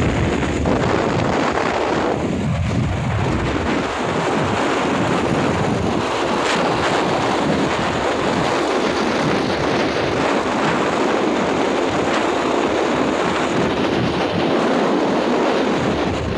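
Steady wind rush buffeting the microphone of a phone on a moving motorcycle, with the ride's road and engine noise blended underneath.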